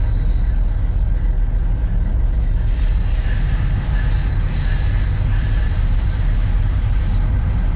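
Steady, loud low rumble inside the cab of a moving Wabtec AC44i diesel-electric locomotive as it runs into a tunnel. The sound holds level without a break, with a faint high tone above it.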